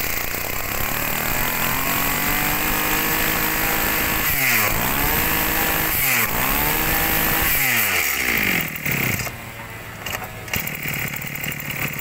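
Small two-stroke engine of a Maruyama BIG M KC26B brush cutter running at high speed. Its pitch climbs, then dips and recovers three times as the throttle is eased and reopened. About nine seconds in it drops back to idle, with a few light knocks.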